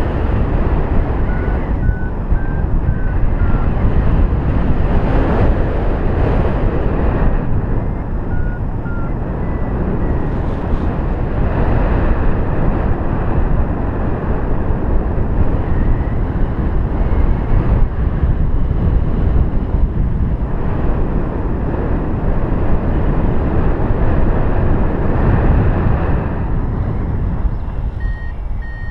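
Wind rushing over the camera microphone on a flying paraglider: a loud, steady rumble of airflow. A few faint short electronic beeps come through it now and then, in the manner of a flight variometer signalling lift.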